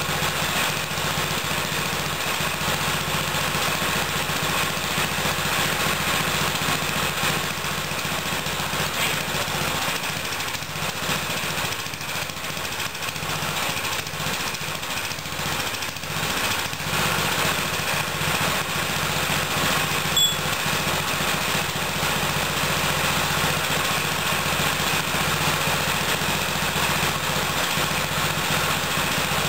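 Tecumseh lawn mower engine running steadily. About two-thirds of the way through, a carbon monoxide alarm held near its exhaust gives a single short, high beep but does not go into its full alarm pattern.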